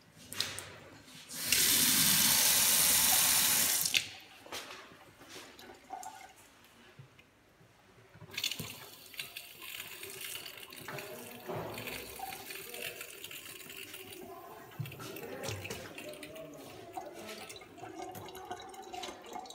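Water running from a chrome pillar tap into a sink basin. A loud gush lasts about two seconds near the start and cuts off suddenly, followed by a quieter, thinner stream splashing with small knocks.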